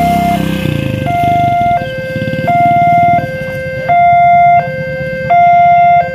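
Railway level crossing warning alarm: an electronic two-tone signal switching between a higher and a lower tone, each held about 0.7 s, with the higher tone louder. It sounds while the barriers are down and means that a train is approaching.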